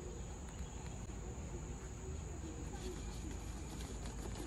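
Insects chirring in one steady, high-pitched drone that does not change.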